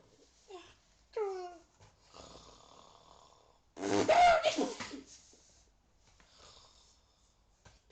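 A person snoring and wheezing: a short falling, whistle-like breath about a second in, a long noisy inhale, then a loud snore with a wavering pitch about four seconds in, followed by faint breathing.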